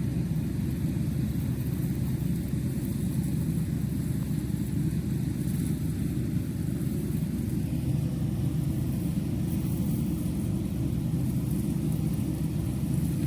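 A steady low rumble that holds even throughout, with no distinct knocks or calls.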